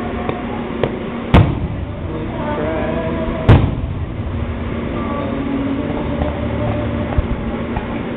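Fireworks display: two loud aerial shell bursts, about a second and a half and three and a half seconds in, each with a short echoing tail, over a continuous background din.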